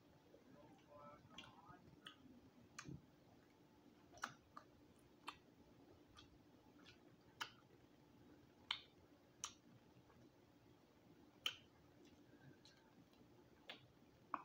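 Quiet eating of roasted quail by hand: a dozen or so short, sharp mouth clicks and smacks at irregular intervals, about one a second, over faint room hum.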